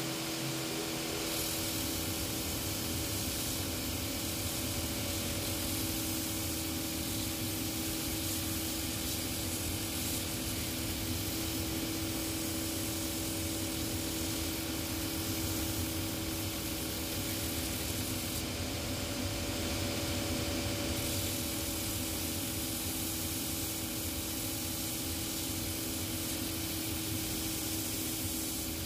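Shoe repair finishing machine running: a steady motor hum over an even hiss, as a stacked leather heel block is ground to an angle against its sanding wheel to set the shoe's pitch.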